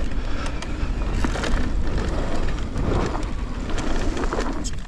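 Mountain bike ridden on a dirt trail: wind noise on the microphone over the rumble of the tyres, with scattered clicks and rattles from the bike.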